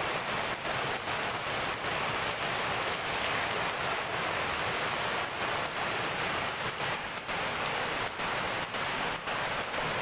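Fermented ensabi leaves sizzling and bubbling in a hot pan with a little added water that is softening them: a steady, dense crackling hiss.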